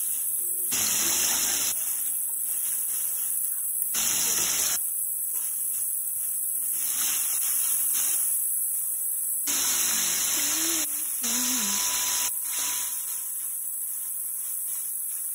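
Chicken pieces deep-frying in hot oil in a square pan, the oil bubbling and sizzling continuously.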